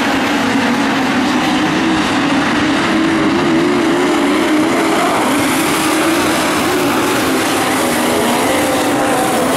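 Midget race cars' engines running around a dirt speedway oval. Their pitch wavers up and down steadily, over a constant wash of noise.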